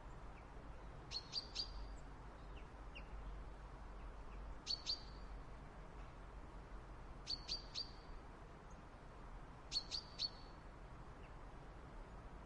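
A small bird giving short, sharp chip calls in quick groups of two or three, repeated about every two and a half seconds, over a faint low background rumble.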